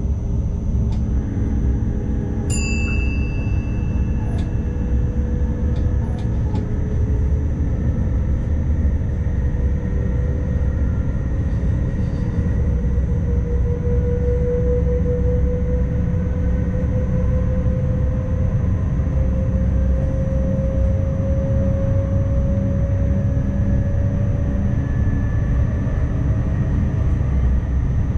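NS ICMm intercity train running, heard from the driver's cab: a steady low rumble with a steady high whine, and a tone that slowly rises in pitch through the middle. A single short ding sounds a couple of seconds in.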